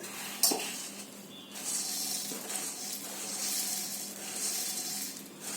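Dry puffed rice (murmura) rustling with a steady high hiss as it goes into a mixing bowl, after a light knock about half a second in.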